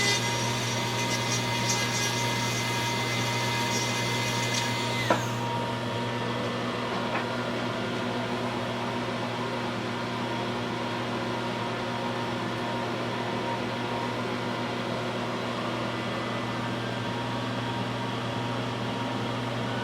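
A rotary handpiece grinding the 3D-printed resin splint to adjust its bite, a steady high whine with scratchy grinding. About five seconds in it winds down and stops, leaving only a steady low hum.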